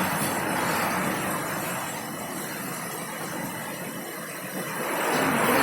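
Heavy rain pouring down in strong wind, a steady rushing hiss that eases a little in the middle and swells again near the end.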